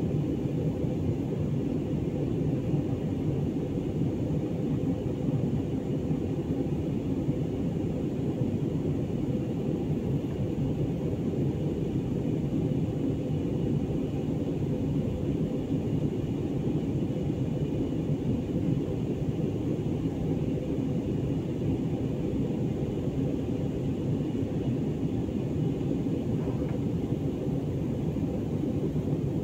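Jet airliner cabin noise in flight: the engines and the airflow over the fuselage heard from a window seat as a steady, unchanging low rumble.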